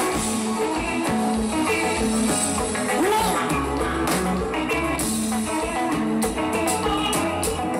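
Konpa band music: an electric guitar playing over bass and drums.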